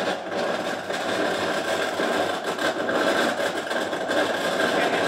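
Steady mechanical drone of a machine running continuously, with an even hum and no change in speed.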